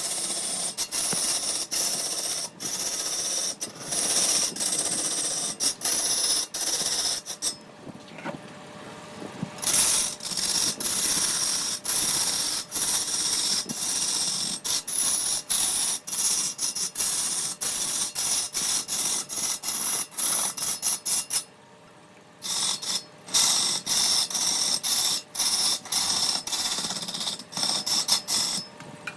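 Woodworking tool noise: rough, rasping mechanical working of wood, in short stretches that stop and start abruptly, with two brief quieter breaks about eight seconds in and near twenty-two seconds.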